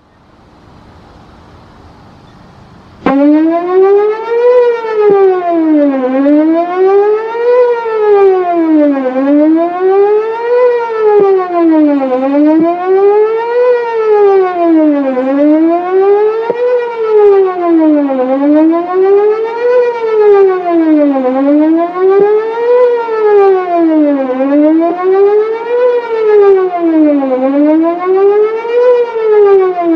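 Whelen WPS-4008 electronic outdoor warning siren starting suddenly about three seconds in and sounding its Best Possible Protection (BPP) tone, a wail that rises and falls about every two seconds. Its rotator is broken, so the horn array does not turn, and its drivers give a few faint pops.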